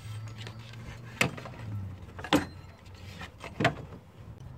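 Three sharp knocks about a second apart as parts and tools are handled at the front of a Ford 6.0 Power Stroke engine while its serpentine belt is taken off. A low steady hum underneath stops about two seconds in.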